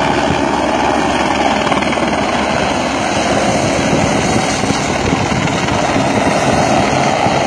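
Helicopter rotor and engine running loud and steady, close by.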